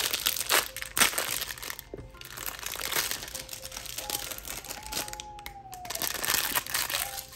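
Clear plastic wrapper crinkling and rustling in the hands as a small squishy toy is unwrapped, in irregular crackles.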